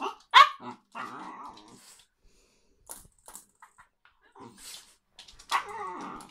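Small shaggy dog vocalising in excited play: a short high-pitched cry right at the start, a rougher throaty sound just after, and another longer cry near the end. A few light clicks come in between.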